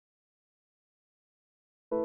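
Dead silence, broken just at the very end by the sudden start of piano music.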